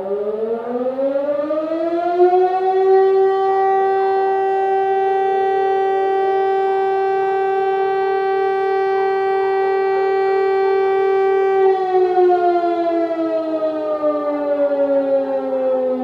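Outdoor warning siren sounding the fire-brigade call-out alarm. Its pitch rises over about three seconds, holds one steady tone for about nine seconds, then winds down.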